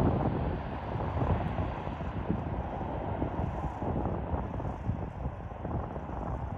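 Distant jet noise from a twin-engine airliner rolling out on the runway after touchdown: a steady rush, with gusts of wind buffeting the microphone.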